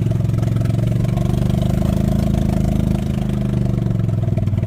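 Engine running steadily at a low, even pitch with a fast pulsing beat. It eases slightly near the end.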